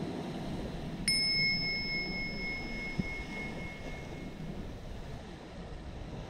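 A single bell strike about a second in: a clear, high ringing tone that fades away over about three seconds, over the steady wash of surf and wind. A brief soft thump follows about two seconds later.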